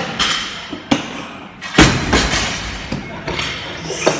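A loaded barbell with 190 kg of bumper plates set down on the gym floor after a deadlift, landing with one heavy thud and a short rattle of the plates a little under two seconds in. A few lighter knocks come before and after it.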